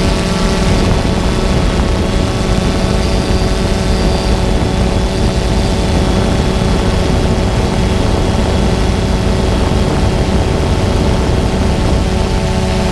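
Camera drone's electric motors and propellers running steadily close to the microphone: a dense, even whine made of several steady tones over a low hum.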